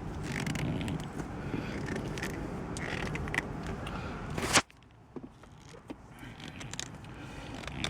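A MOMO shift knob being twisted and pushed down over the rubber piece onto a Mazda Miata's shift lever, with scraping, creaking and handling noise. It ends in a sharp click about four and a half seconds in, followed by a few faint clicks.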